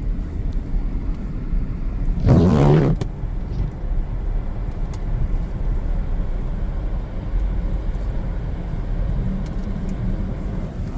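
Steady low rumble of a Ford Edge driving, heard from inside the cabin, with a brief louder rush of noise about two seconds in.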